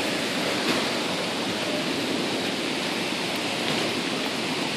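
Steady rain falling, an even hiss with no distinct drops or breaks.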